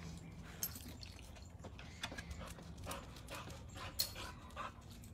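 A dog moving about close by, with scattered light taps and clicks.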